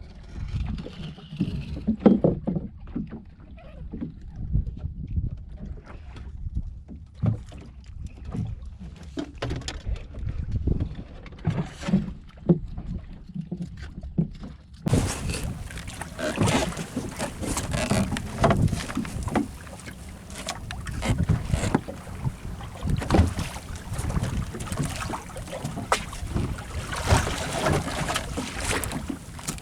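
Wind buffeting the microphone on a small fishing boat at sea, with uneven low rumbling and knocks. About halfway through, a brighter hiss suddenly joins and carries on.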